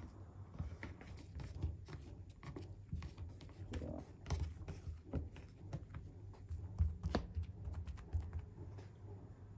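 Light, irregular taps and clicks of small objects being handled, over a steady low hum.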